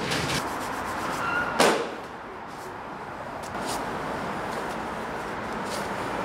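A single sharp landing impact about a second and a half in, a parkour athlete's shoes hitting the ground after a jump, with a short squeak just before it. A steady urban background hum runs underneath.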